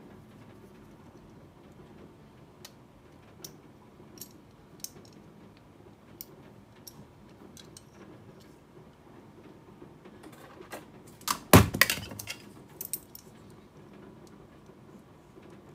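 Scattered small metal clicks and taps as the lower frame of a WE Walther P38 airsoft pistol is handled and its parts worked loose with small tools. A louder cluster of clattering knocks comes about eleven and a half seconds in.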